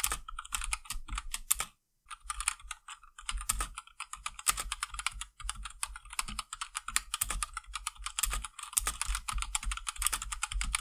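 Typing demo on a Rantopad MXX mechanical keyboard with Gateron Black linear switches and ABS keycaps: a fast, continuous stream of keystroke clacks, with a short pause a little under two seconds in.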